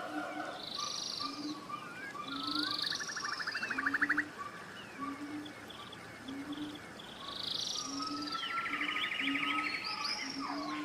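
Forest ambience of several birds singing and calling: short high chirps, buzzy trills and sweeping, mewing whistles, some overlapping. Beneath them a low short call repeats about once a second.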